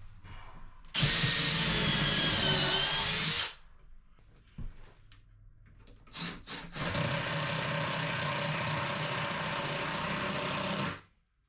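Power drill running in two long bursts, the first about two and a half seconds and the second about four seconds, with a couple of short blips of the trigger between them; its motor whine wavers in pitch during the first burst.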